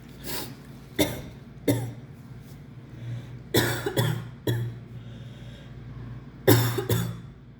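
A woman coughing in a run of short, sharp coughs that come in three bunches with brief pauses between, from a cold she believes is flu.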